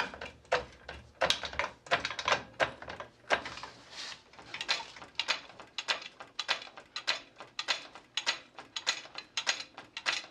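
A jack being pumped to lift the rear suspension arm and compress the new coil spring: a run of irregular mechanical clicks and clunks, several a second.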